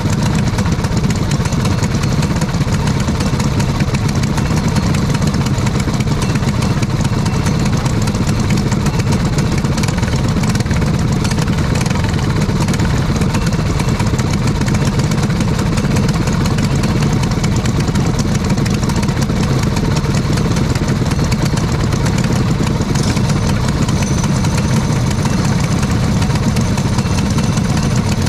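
Racing kart engines idling steadily.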